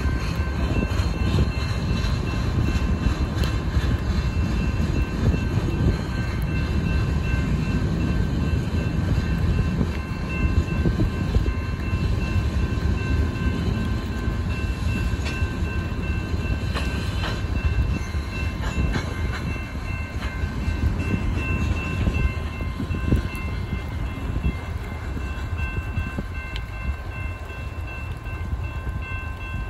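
Freight cars rolling past over a grade crossing, a steady low rumble and rattle of steel wheels on rail that eases near the end as the last cars clear. A grade-crossing warning bell rings steadily over it.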